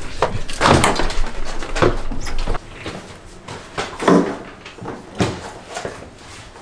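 A few short voice-like sounds, such as brief exclamations or murmurs, in a small room. A low hum cuts off suddenly about two and a half seconds in.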